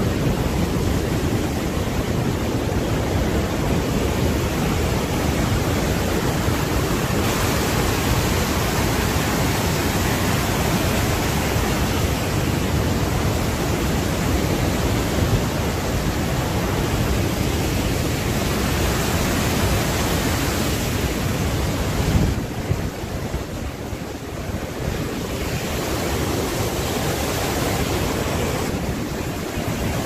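Steady rushing roar of a large waterfall pouring over the cliff beneath the bridge, mixed with wind on the microphone; it eases for a few seconds about 22 seconds in.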